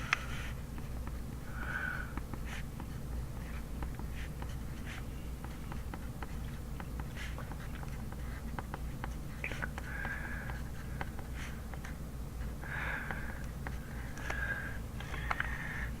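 Handwriting on paper: irregular short scratchy strokes and light taps of the writing tip, over a steady low hum.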